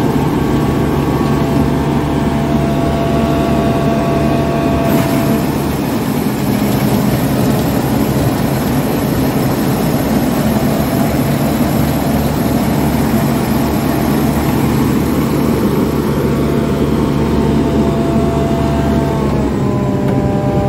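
Forage harvester's diesel engine running steadily at close range, a constant loud low hum with a faint whine coming and going over it.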